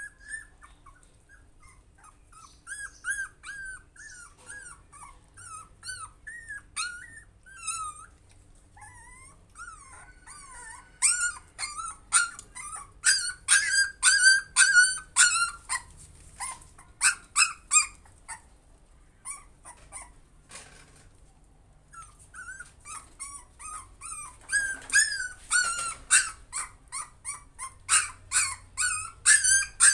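Puppy whimpering and yelping in short, high-pitched cries, scattered at first, then in fast runs of many cries, with a lull of a few seconds between the runs.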